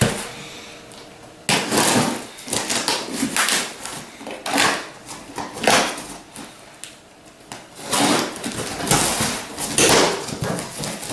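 A knife slicing through packing tape on a cardboard box, then the cardboard flaps being pulled open, in a series of irregular scraping and tearing strokes.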